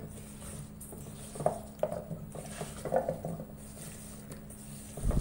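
A bare hand tossing spice-and-curd-coated potato sticks in a stainless steel bowl: a few separate wet squishes and soft knocks of the sticks against the bowl, the loudest about one and a half and three seconds in, over a low steady hum.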